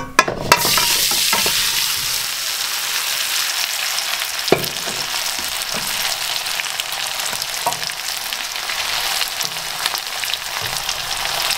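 Boiled potatoes sizzling in hot rice bran oil in a frying pan, the sizzle starting sharply as they drop into the oil about half a second in and then holding steady. A couple of sharp knocks sound partway through.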